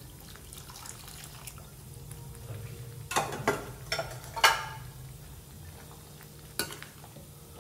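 Spoon stirring a chicken curry in a cooking pot, clinking against the pot several times about three to four and a half seconds in and once more near the end, over a low steady hum.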